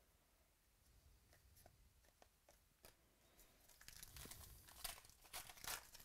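Faint crinkling and tearing of a foil baseball-card pack wrapper being ripped open by hand, starting about four seconds in, after a few light clicks.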